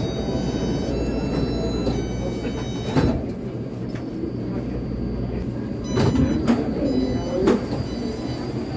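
Taipei Metro train car rumbling as it brakes into a station, the rumble dropping away about five and a half seconds in as it stops. A few sharp clunks follow as the sliding doors open near the end.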